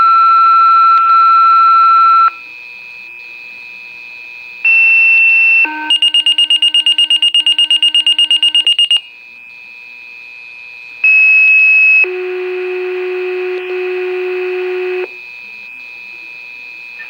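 Fire dispatch alert tones over a radio pager or scanner: a long steady tone, then a short high tone followed by a tone pulsing about seven times a second, then another short high tone and a long low tone. These are the paging tones that set off firefighters' pagers before the call is read. A faint steady high whine runs underneath.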